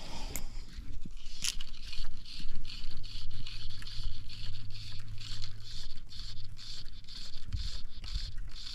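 Small waves lapping and slapping against a flats skiff's hull in an irregular patter, over a steady low hum.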